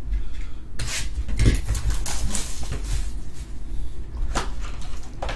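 Cardboard trading-card box being opened and handled, with its foil-wrapped pack inside: irregular rustling, scraping and crinkling. The busiest stretch comes about a second in and lasts roughly a second and a half, and single sharp handling noises follow near the end.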